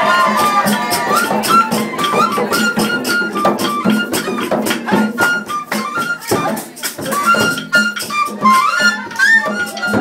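Music: a fast, even percussion beat under a high melody that moves in short steps between held notes.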